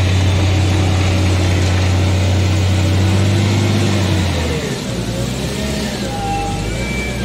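Caterpillar 950 GC wheel loader's diesel engine working hard with a deep steady drone, then easing off about four and a half seconds in. After that a thin wavering whine rises and falls over the lower engine note.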